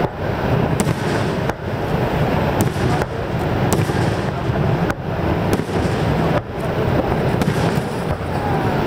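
Aerial firework shells bursting in quick succession, their booms running together into a continuous rumble, with several sharp cracks along the way.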